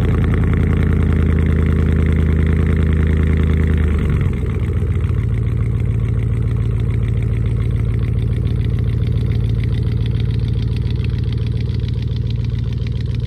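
Pickup truck engine running at idle; about four seconds in its tone shifts and it carries on steadily as the truck pulls away slowly.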